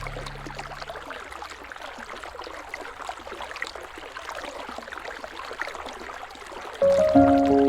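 River water flowing and rippling: an even wash with small splashes and trickles. A music bed of held notes fades out in the first second and comes back in sharply near the end.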